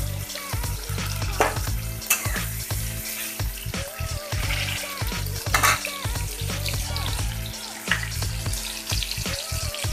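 Sliced onions and chopped tomatoes sizzling in hot oil in a metal kadai, stirred and scraped with a metal spatula, a few sharper scrapes standing out over the steady sizzle. This is the onion-and-tomato base being fried for a curry.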